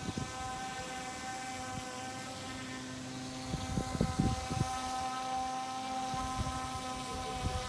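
RC airboat's motor and air propeller running at a steady speed, giving a steady whine. A few low rumbles come about four seconds in and again near the end.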